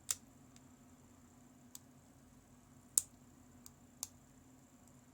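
Lock pick and tension wrench working the pins of a GEGE AP3000 pin-tumbler cylinder during single-pin picking: a few sharp, small metallic clicks, the loudest about three seconds in.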